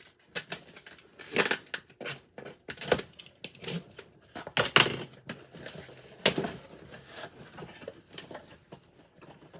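Cardboard shipping box and its packing being opened and unpacked by hand: irregular rustles, scrapes and sharp crackles of cardboard and wrapping.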